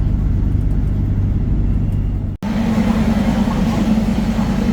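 Low steady rumble of a train carriage in motion, heard from inside. After a cut about two and a half seconds in, a different steady hum with background noise follows.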